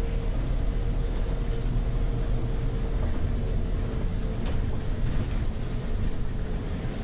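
City bus heard from inside the passenger cabin while driving: a steady low rumble of engine and road noise, with a thin whine that fades out about five seconds in.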